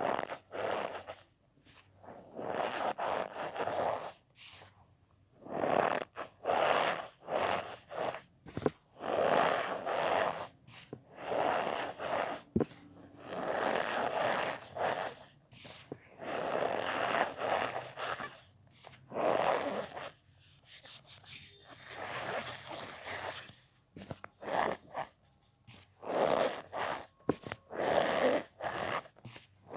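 Packed cornstarch powder squeezed and pressed by hand, squeaking and crunching in about fifteen separate squeezes of up to a second or so each, with short pauses between.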